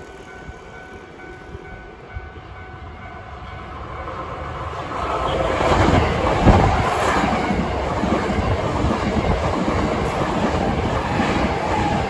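A Hankyu 8000 series electric train comes up and runs past close by. Its rumble grows louder from about four seconds in and stays loud as the cars go by.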